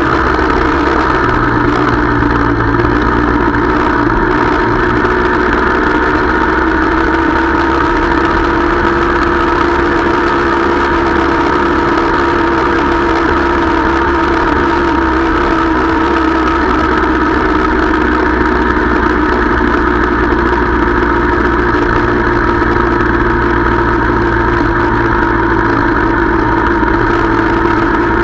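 Motorcycle engine running steadily at road speed, picked up by a microphone on the bike itself; its note drifts a little up and down with the throttle.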